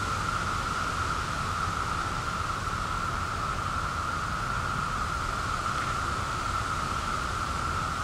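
Chorus of Magicicada periodical cicadas: a steady, continuous drone from many males singing together, holding one pitch without a break.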